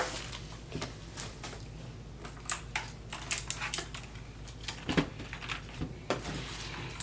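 Irregular clicks and light knocks, about a dozen, from a mechanical keyboard with clicky blue switches being handled, some sounding like single key presses.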